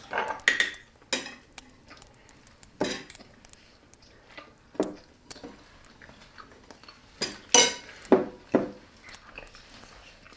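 Cutlery clinking and knocking against plates and dishes at a meal: a string of separate sharp clinks at uneven intervals, some with a brief ring, the loudest about three quarters of the way through.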